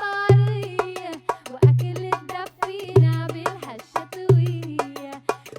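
Live electronic soul music: a bending melodic line over a deep bass hit about every 1.3 seconds and busy, clicking hand-drum-style percussion.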